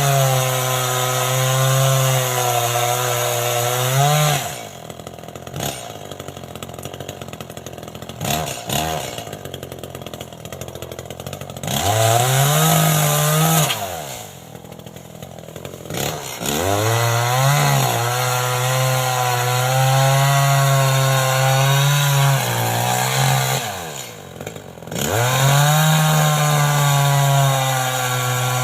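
Two-stroke chainsaw cutting while pruning: the engine runs at high revs in long pulls, drops back to idle several times between them, then revs up again.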